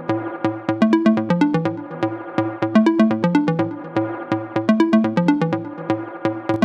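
Electronic music with a steady beat and a repeating synth melody over a bass line.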